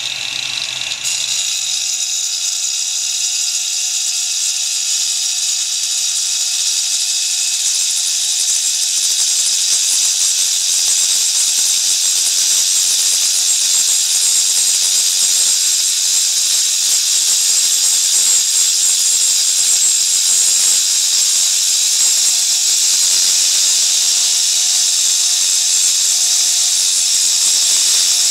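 Makita angle grinder with a SHARK diamond rescue/utility blade cutting through a granite slab: a steady, loud, high-pitched grinding hiss of the diamond blade in the stone.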